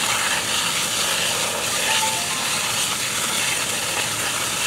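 Steady hiss and rush of a fire hose spraying water onto smouldering barn debris, over the steady running of a fire engine and its pump.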